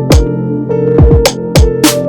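Electronic music with a drum machine beat: sharp hits and deep booms that drop in pitch over sustained synthesizer notes.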